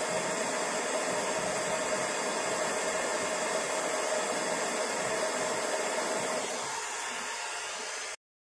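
Stanley heat gun blowing a steady rush of hot air with a steady whine from its fan, reheating the chips on a circuit board to reflow their solder. The rush eases slightly near the end, then cuts off suddenly.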